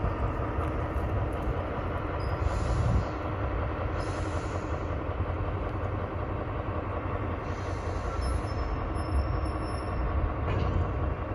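SNCF BB 75000-class diesel locomotive running with a steady low engine drone and several steady tones over it. A faint high wheel squeal comes in briefly about two and a half seconds in and again around eight to nine seconds.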